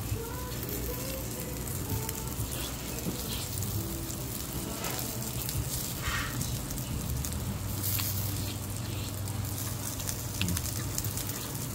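Pork and kimchi sizzling steadily on a hot tabletop grill pan, with a few light clicks of metal tongs turning the meat.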